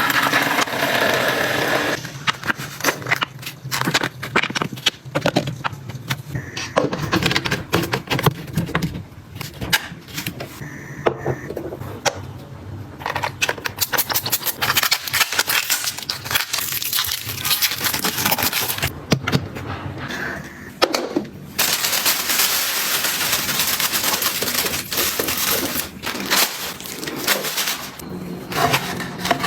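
Close-up handling sounds of objects being picked up and set down: repeated clicks, taps and scrapes, with a spell of crinkling or rustling packaging a little after the middle.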